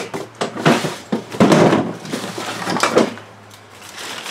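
Knocks and clatter of trash and clutter being handled and moved about, with a louder, longer noisy stretch about a second and a half in and a quieter spell near the end.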